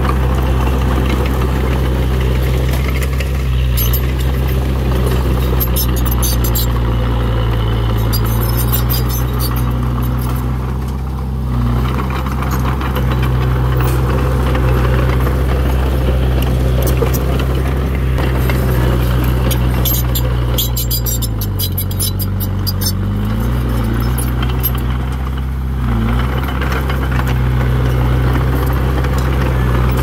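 Small crawler bulldozer's diesel engine running steadily. Its pitch sags briefly about a third of the way in and twice near the end. There are two spells of rapid clicking.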